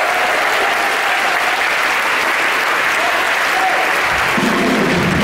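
Concert audience clapping, with the band's bass and drums starting up again near the end.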